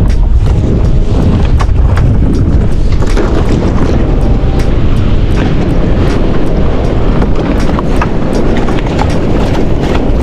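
Strong wind buffeting the microphone, a loud steady rumble, with scattered sharp clicks and knocks as a fishing net is hauled by hand over the side of a small wooden boat.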